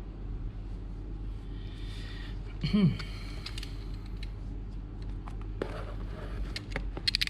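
Small clicks and clatter of objects being handled on a workbench, over a steady low hum. About three seconds in there is a short pitched sound sliding down in pitch, and a quick run of sharp clicks comes near the end.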